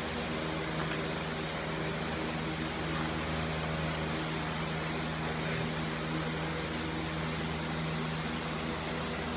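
A steady low hum with several even tones over a constant hiss, like a running ventilation or air-conditioning unit.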